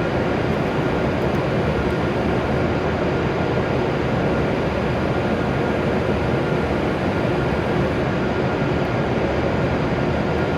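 Steady hum and rush of a stopped E7 series Shinkansen train's onboard equipment standing at the platform, with a faint steady whine over an even noise.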